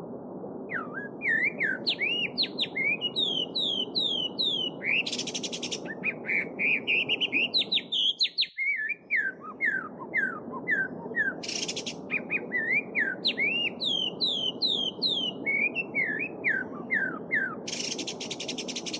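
Small songbirds chirping in quick runs of sweeping notes over the steady murmur of a babbling stream, with three short bursts of a high buzzy trill. The water sound drops out briefly about halfway.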